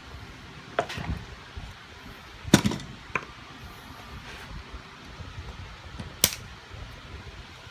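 A mallet knocking on a screwdriver held against the aluminum end cap of a Saginaw power steering gear box, to drive the cap into the housing. Three sharp knocks and a lighter one, the loudest about two and a half seconds in.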